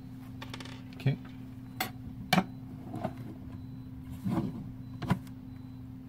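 Handling noise: several sharp knocks and clicks of a plastic keyboard case and a screwdriver being moved about on a wooden desk, over a steady low electrical hum.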